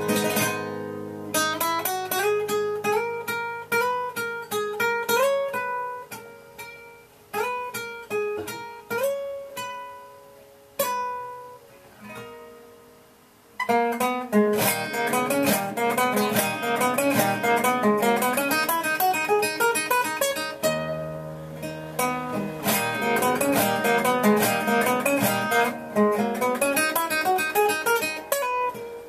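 Nylon-string classical guitar played solo: sparse single notes, several of them sliding in pitch, with pauses that let the notes ring out and fade. About halfway through it breaks into fast, dense runs of picked notes.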